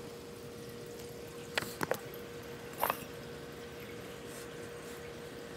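Quiet room tone with a steady low hum and a few brief, faint clicks about one and a half to three seconds in.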